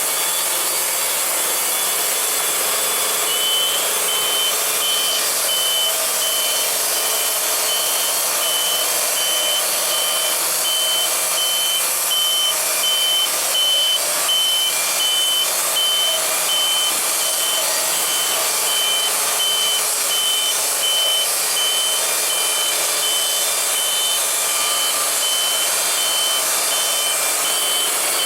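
Wood-Mizer LT70 band sawmill running with a steady, loud noise. A rapid, even high beeping starts a few seconds in and carries on throughout.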